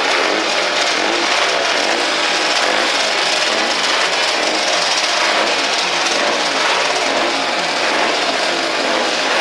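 Motorcycle engines running and revving, loud and continuous, with the engine pitch rising and falling throughout.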